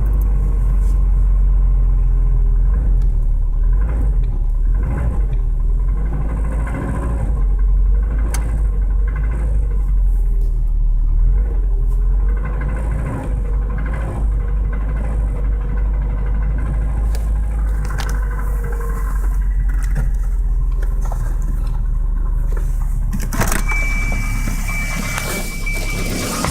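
1986 Volvo 240's engine running just after a cold start, with a loud knocking racket from piston slap. A steady high tone joins in near the end.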